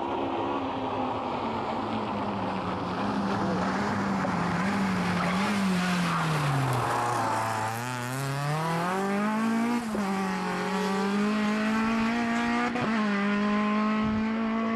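Toyota Yaris rally car's engine at stage pace. The engine note falls as the car slows for the corner, then rises as it accelerates away, with two gear changes, one about two-thirds of the way in and one near the end.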